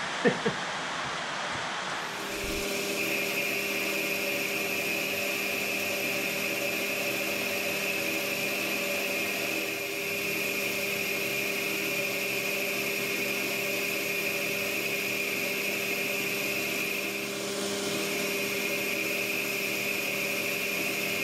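Two brief loud sounds at the very start. About two seconds in, a metal lathe starts up and runs steadily with a steady whine, spinning a four-jaw chuck that holds a casting while a boring bar bores it out to one inch.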